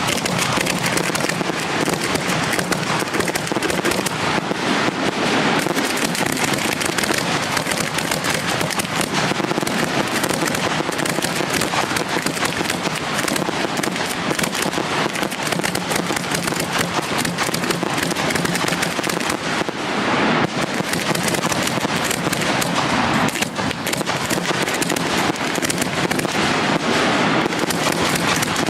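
Display fireworks firing in a dense, continuous barrage of rapid bangs and crackle, with no break between shots.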